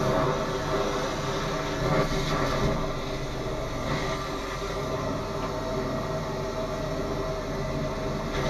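High-pressure drain jetter running steadily with a constant machine hum and hiss while it jets a blocked sewage pipe.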